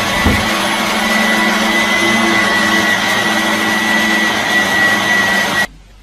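Dyson cordless stick vacuum running at a steady pitch with a high, even whine, then switched off abruptly near the end.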